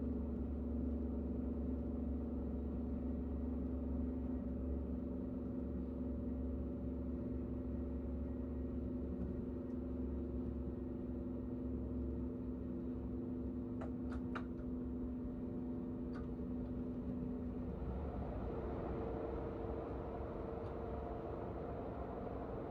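Inside a KTX high-speed train cabin at speed: a steady low rumble with a constant electric hum. A few light clicks come about midway. Near the end the sound changes to more hiss and a higher hum as the train enters a tunnel.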